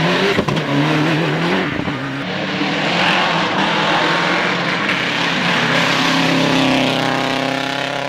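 Rally car engines at full throttle: for about two seconds a car revs hard through a hairpin, its note rising and falling with the throttle, then a second car accelerates towards and past, its engine note climbing steadily for several seconds.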